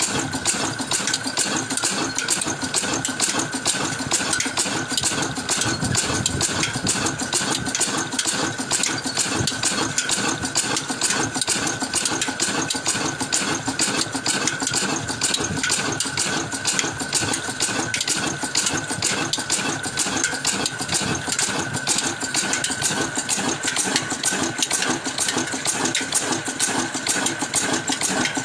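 Old single-cylinder horizontal diesel engine with large spoked flywheels running steadily at idle, with an even, rapid beat that does not change.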